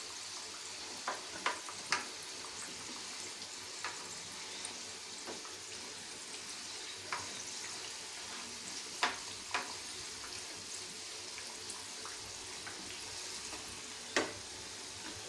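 Wheat-flour and maida dough snack deep-frying in hot oil: a steady sizzle with a few sharp pops and clicks scattered through it.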